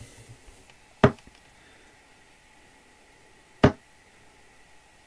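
Two steel-tip darts thudding into a Winmau Blade 5 bristle dartboard, one about a second in and the next about two and a half seconds later, each a single sharp knock.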